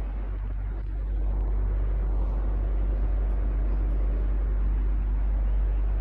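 Electric fan running steadily: a constant airy whoosh over a low hum, a little louder from about a second in.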